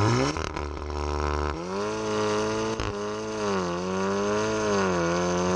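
Exhaust of a Stage 2 tuned VW Golf 8 R's turbocharged four-cylinder, with a decat downpipe and Milltek system, heard close to the tailpipes while driving hard. The note climbs sharply at the start, drops about one and a half seconds in at a gear change, then holds fairly steady with slight rises and dips.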